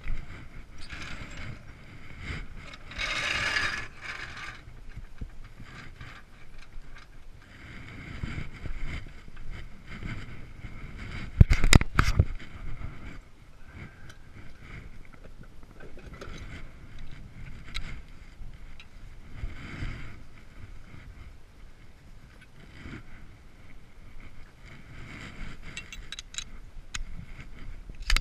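Hand tools working on a car wheel during a tire change: intermittent ratcheting clicks and metal clanks, with a short scraping burst about three seconds in and a few sharp knocks around the middle.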